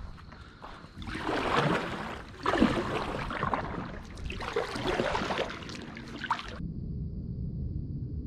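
Kayak paddle splashing through water in three strokes about a second and a half apart. About two-thirds of the way in it cuts off abruptly to a steady low hum with a faint high whine.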